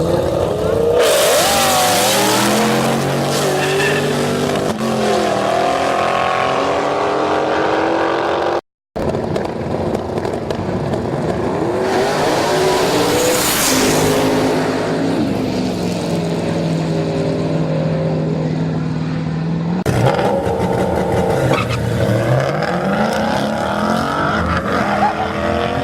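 Drag racing cars accelerating hard, their engine notes climbing and dropping back with each gear change, with some tire squeal. Several separate runs follow one another, with a moment of silence about nine seconds in.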